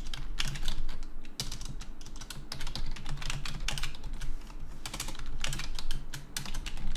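Typing on a computer keyboard: quick, irregular keystrokes, with a low steady hum underneath.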